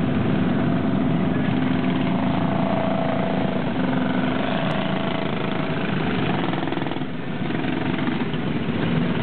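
Engines of several small race cars running as they roll slowly past in a line, a steady mixed engine drone that dips briefly about seven seconds in.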